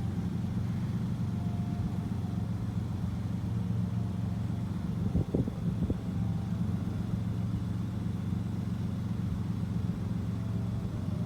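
Steady low mechanical hum, like a running engine or motor, with a short knock or two about five seconds in.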